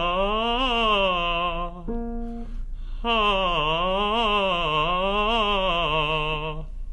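A male voice singing a wordless vocal exercise: two phrases of quick up-and-down figures, each ending on a held low note. Between the phrases, about two seconds in, a single short steady instrument note sounds.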